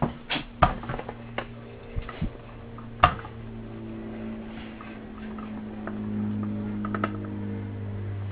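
A loudspeaker's metal frame knocks and clatters several times against a workbench as the woofer is set down and handled, the sharpest knocks about half a second and three seconds in. Under it runs a steady low hum that grows louder after about six seconds.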